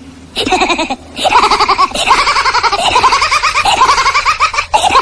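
High-pitched giggling laughter, a quick run of short repeated ha-ha syllables, starting a moment in with a brief break about a second in.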